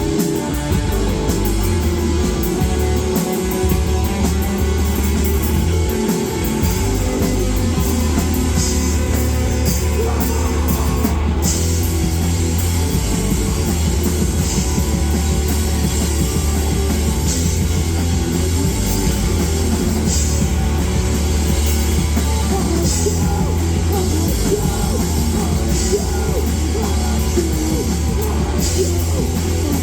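Live rock band playing loud and steady, with electric guitar, bass and drum kit.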